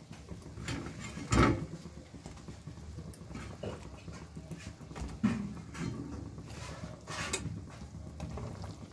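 Rezala gravy bubbling in a metal pan as fried fish pieces are added, with a few irregular knocks of a spatula and fish against the pan; the loudest knock comes about a second and a half in.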